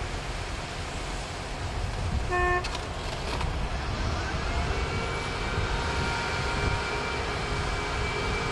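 Heavy construction machinery running with a steady low rumble. A short horn toot sounds about two and a half seconds in, and past the halfway point a machine's whine rises slightly and then holds steady.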